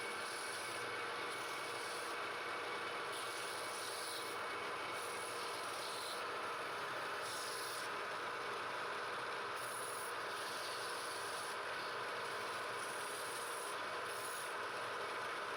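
Wood lathe running steadily with a tool rubbing against the turning wood, adding short bursts of higher hiss every second or two.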